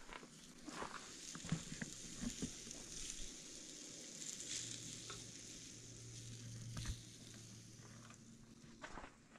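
Chicken fajita meat sizzling on a camp stove's grill, a steady faint hiss, with a few light clicks of tongs turning the pieces early on. A low steady hum joins about halfway through.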